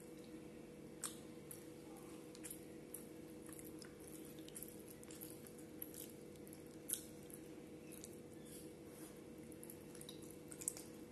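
Wet squishing of curry and rice worked by hand, then chewing with small mouth clicks. A few short sharp clicks stand out, about a second in, near the middle and near the end, over a faint steady hum.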